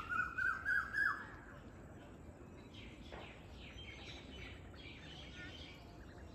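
A bird calling a quick run of repeated notes that climb in pitch over the first second, followed by fainter chirping.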